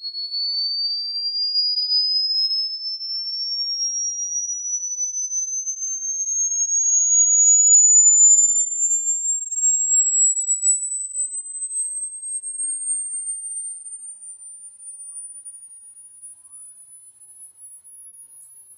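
A single pure electronic tone sweeping slowly and steadily upward from a high whistle to a piercing, very high pitch, loudest around the middle and fading toward the end. It is a synthesized high-frequency rodent-repellent sound.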